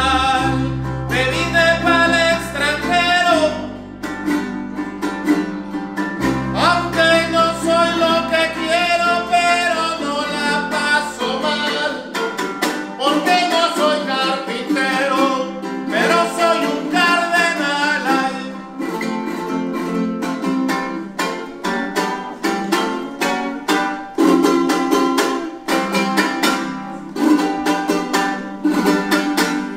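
Son jarocho music: a man sings over small strummed guitars and a deep plucked bass guitar, and from about halfway through the rhythmic strumming carries on largely on its own.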